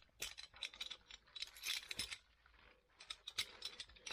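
A rapid, irregular series of light metallic clicks and clinks from hand tools being handled and worked.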